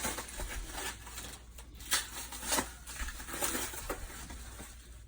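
Packaging being unwrapped by hand: plastic wrap and packing material crinkling, tearing and rustling in a series of short, uneven rustles.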